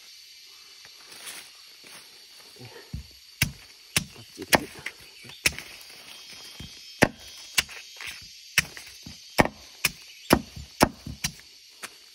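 A knife chopping at a freshly dug sweet bamboo shoot, trimming it: about a dozen sharp chops, loosely spaced half a second to a second apart, starting about three seconds in.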